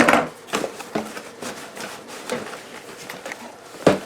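Cardboard packaging scraping and rubbing as a tightly packed accessory kit is worked out of its box, with scattered clicks, a knock at the start and a sharper knock near the end.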